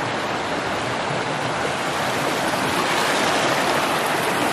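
Small rocky mountain brook running over rocks and little cascades: a steady rush of water.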